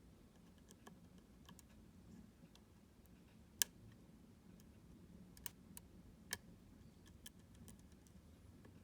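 Faint, irregular small clicks of a lock pick working the pins of a U-Shin Showa NX high-security pin-tumbler lock under tension. The sharpest click comes about three and a half seconds in, with a few more over the following four seconds.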